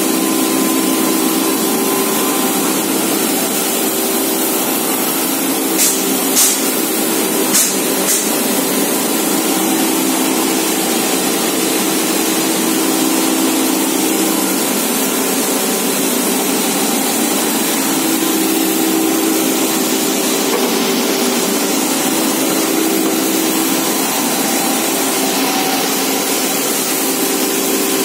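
Plastic recycling machinery running steadily: a loud, even hiss over a steady hum, with a few sharp clicks about six to eight seconds in.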